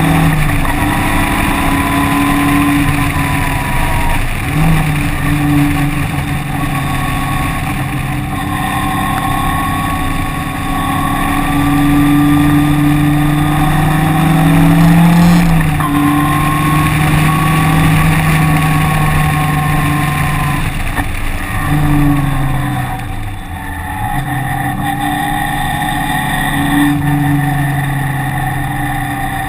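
Engine heard onboard while lapping a wet race track, its pitch climbing under acceleration, dropping sharply at each gear change and falling away when easing off, over a steady rushing hiss.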